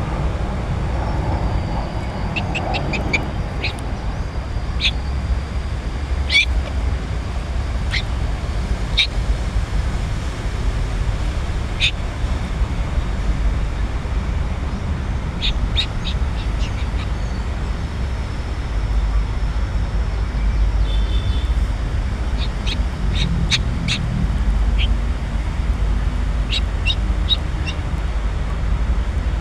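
Medium cockatoo giving short, sharp, high calls in scattered runs, fussing, over a steady low rumble.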